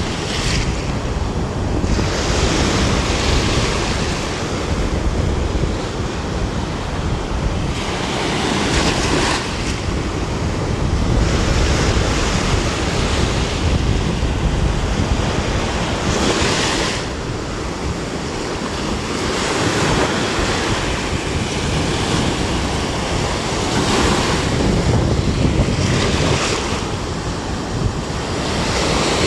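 Small waves breaking and washing up a sandy beach, the foam hissing as each one runs up the shore every few seconds, with wind buffeting the microphone.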